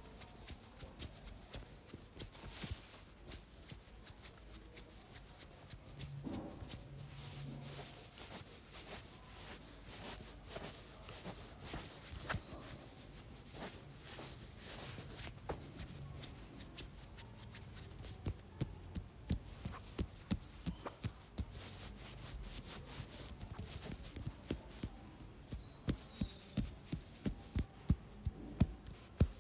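Hands massaging a person's head and face: fingertips rubbing and pressing on skin and hair, with small clicks. In the last ten seconds this becomes a run of light, regular taps, about two a second, loudest near the end.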